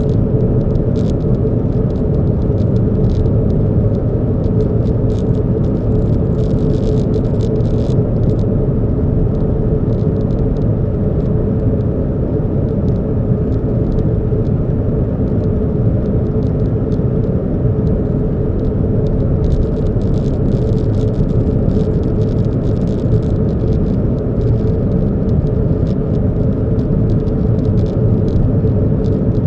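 Car running with a steady rumble of engine and road noise and a constant hum, with light high ticks and rattles coming and going.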